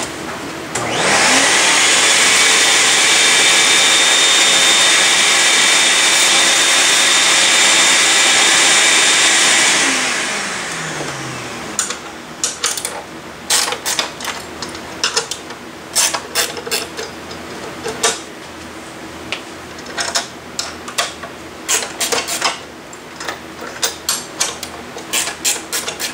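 A high-speed electric motor spins up with a rising whine, runs steadily and loudly for about nine seconds, then winds down with a falling pitch. After it stops, a run of irregular light clicks and knocks as the board and clamps are handled.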